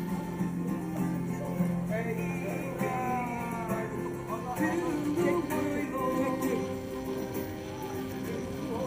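Street busker playing an acoustic guitar and singing in a man's voice.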